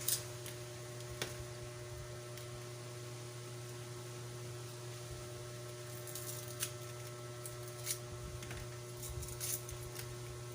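Steady low electrical hum, with a few faint light clicks and taps scattered through it.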